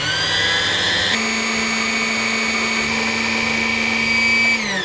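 Singer 4411 Heavy Duty sewing machine's electric motor running to wind thread onto a bobbin. It whines up to speed, runs steadily, and winds down near the end.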